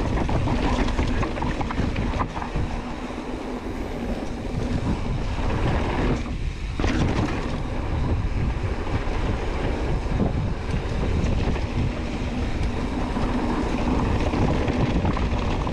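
Wind rushing over the microphone as a mountain bike rolls down a rocky downhill trail, with the tyres and bike rattling over the rocks. The rush eases briefly a little over six seconds in.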